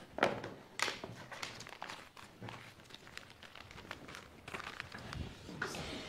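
Handling noise: scattered soft knocks and rustles, with a few sharper clicks about a second in.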